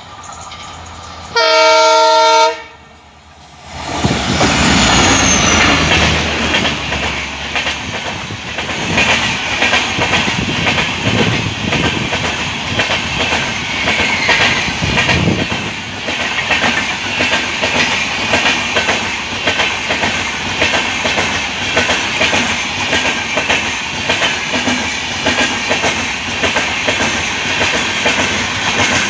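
A train horn sounds one blast of about a second near the start, then a passenger express passes close at speed: a steady rumble of the coaches with the rhythmic clickety-clack of wheels over the rail joints.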